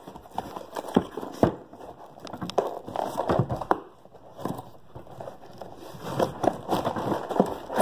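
Cardboard shipping box being torn open by hand: irregular ripping, scraping and crackling of the flaps, with crinkling of brown packing paper inside.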